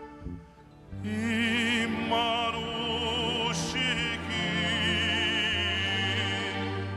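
Male singer performing a slow Armenian song live, holding long notes with a wide vibrato over steady instrumental accompaniment. The voice comes in about a second in, breaks briefly past the middle, then holds one long note until near the end.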